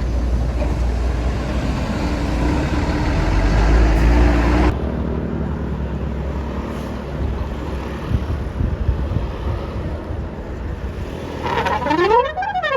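Heavy bus engine running past with traffic noise, building to its loudest about four and a half seconds in, then cutting off abruptly to a steadier traffic hum. Near the end, a bus's telolet musical horn starts up with sliding tones that rise and fall.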